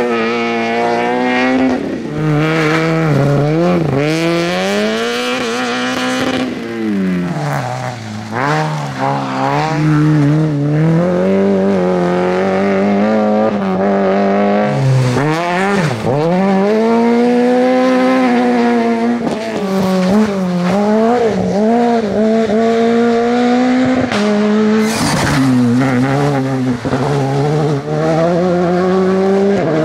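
A rally car's engine revving hard, its pitch climbing and dropping again and again as it shifts up and then slows for corners. It gives a few sharp cracks near the end.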